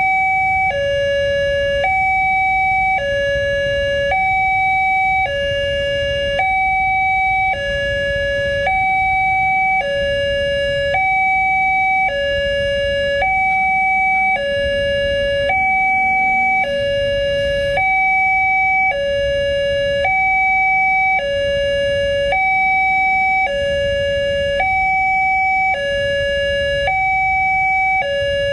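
Electronic two-tone railway level-crossing alarm (the 'Alkmaar'-type tone) sounding from the post's loudspeaker, switching steadily between a higher and a lower note about once a second. It is warning that a train is approaching while the barrier is closed. A low road rumble from waiting traffic lies underneath.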